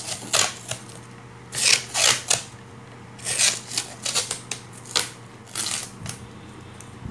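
Masking tape pulled off its roll in a series of short, uneven ripping pulls and wrapped around a freshly wound transformer coil.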